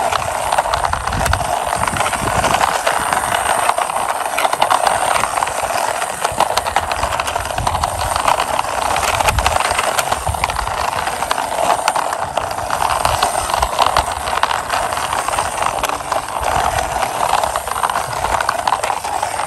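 Plastic wheels of a toy bus rolling along a rough outer wall, a steady rolling noise with many small clicks and rattles.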